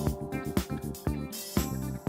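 Background music with held tones and a light, even beat.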